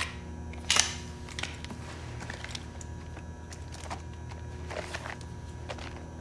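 A compact pistol being handled: a sharp metallic click about a second in as the magazine is pushed into the grip, then softer handling clicks and the rustle of plastic document sleeves being flipped through. A steady low hum runs underneath.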